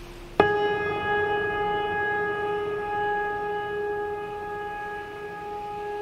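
A bell struck once about half a second in, its clear ringing tone of several overtones slowly fading away.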